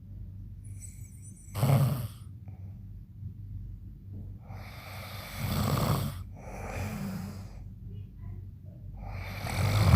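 A man snoring loudly in his sleep: three heavy snores about four seconds apart, the last the loudest, with quieter breaths between.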